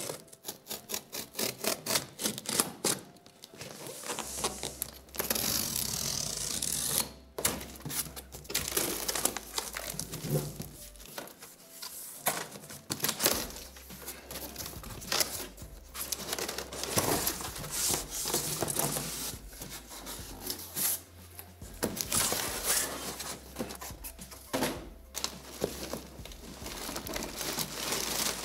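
Packing tape on a cardboard box being slit with a box cutter, a rapid run of crackling ticks, followed by tape tearing, cardboard flaps being pulled open and rustling. Near the end, white packing material crinkles as it is lifted out of the box.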